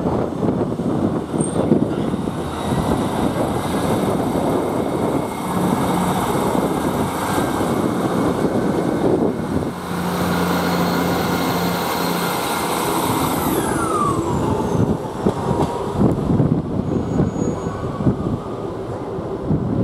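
Diesel multiple-unit trains running through the station: engines under power with a steady rumble, and a high whine that drops in pitch about two-thirds of the way in as a Class 158 unit passes close by.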